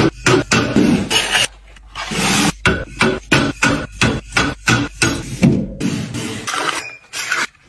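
Groceries and containers being handled and put away: a quick, irregular run of short scraping and rubbing noises with small knocks.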